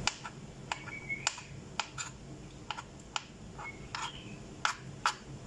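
Kitchen knife slicing a boiled beetroot on a white cutting board: about a dozen sharp, irregular taps as the blade goes through the soft beet and knocks the board.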